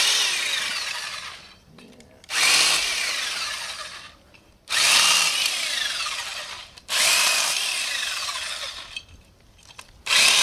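Black & Decker Alligator electric lopper's small chainsaw running in five short bursts as it snips small branches. Each burst starts suddenly and fades out with a falling whine.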